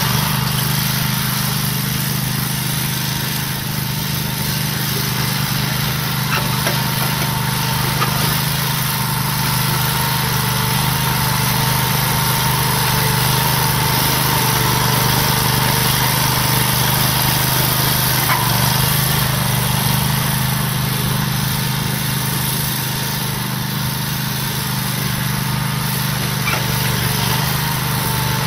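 John Deere 318 garden tractor's engine running steadily under load as the tractor pushes dirt and sod with a front blade. The engine note dips a little now and then.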